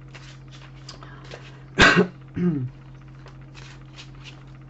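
A woman coughs once, sharply, about two seconds in, followed by a short falling voiced sound like clearing her throat. Light scattered clicks and rustles run throughout.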